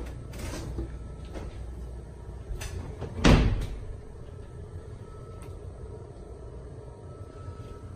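One loud hollow thump about three seconds in, with a few lighter knocks and clicks before it, over a low steady rumble.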